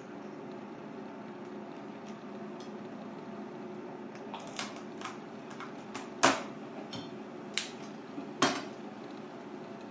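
Kitchen knife knocking on a plastic cutting board while crab is cut: silent for the first four seconds, then a few sharp, irregular knocks, the two loudest about two seconds apart, over a steady background hum.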